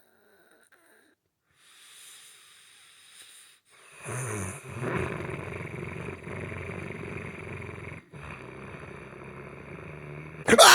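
A person snoring in their sleep. After a pause, a soft breath is followed by a long, loud rattling snore and then a quieter breath. At the very end a sudden loud cry, falling in pitch, breaks in.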